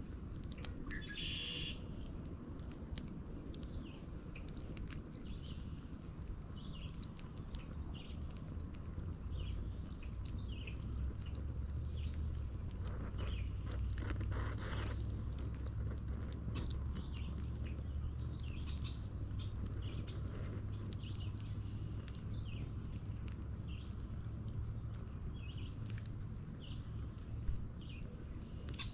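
Birds chirping in many short, repeated calls, with the light crackle of a small wood fire in scattered sharp pops, over a low steady rumble that swells in the middle.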